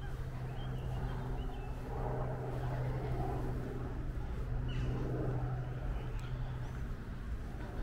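A motor vehicle's engine running steadily, a low hum that drops away near the end, with a few short bird chirps over it.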